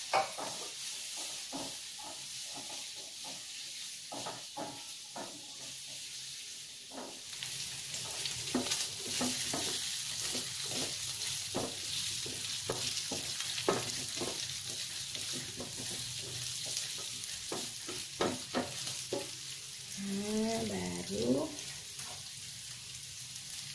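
Sliced meatballs frying in oil in a metal wok, a steady sizzle with a spatula stirring and knocking against the wok many times. The sizzle grows louder about seven seconds in.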